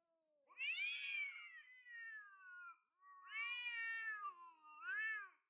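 A cat meowing: two long drawn-out meows that slide down in pitch, then a short rising-and-falling meow near the end.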